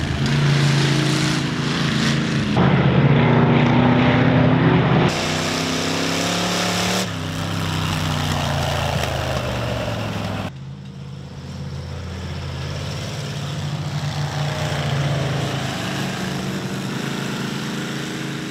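Monster truck engines running and revving as the trucks drive over loose dirt. The engine note rises and falls and changes abruptly several times.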